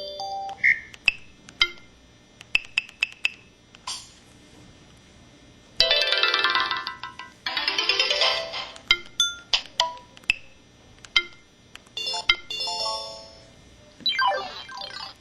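A Samsung SCH-E300 mobile phone's built-in sound effects played one after another: a run of short electronic beeps, chimes and blips, with two longer warbling, sweeping tones about six and seven and a half seconds in and another near the end.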